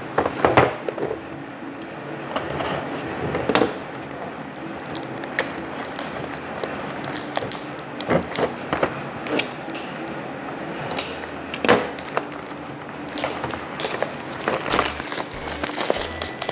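Unboxing by hand: a small cardboard toy box being opened and its plastic-wrapped diecast model slid out, giving an irregular run of cardboard scrapes, clicks, rustles and crinkles of plastic wrap.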